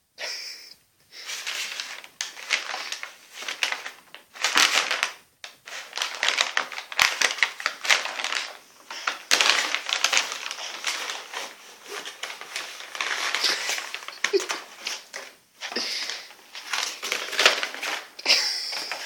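Brown paper bag crinkling and rustling in irregular bursts, broken by a few short pauses, as a cat wrestles with it and crawls inside it.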